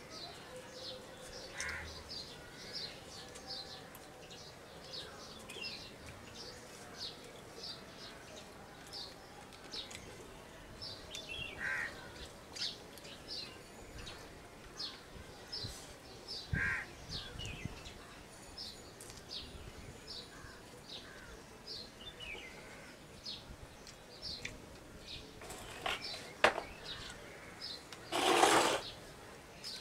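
Small birds chirping, short high chirps repeating about twice a second throughout, with a few lower calls now and then. A brief loud rush of noise comes near the end.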